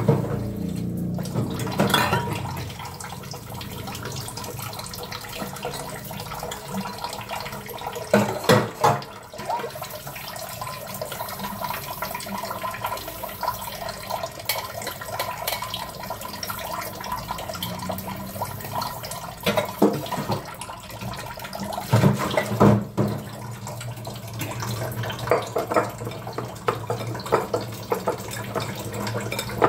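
Kitchen tap running steadily into a sink while dishes are washed by hand, with a few sharp knocks and clinks of utensils against the sink, the loudest about a third of the way in and again past two-thirds.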